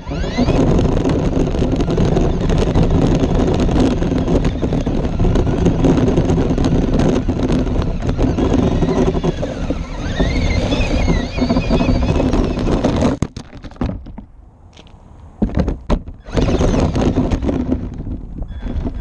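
Traxxas LaTrax SST RC truck driving over pavement, grass and gravel, heard from a camera on its body: the electric motor's whine rises and falls with the throttle over a heavy rumble of tyres and chassis. About thirteen seconds in it goes much quieter for a few seconds, then loud jolting runs start again.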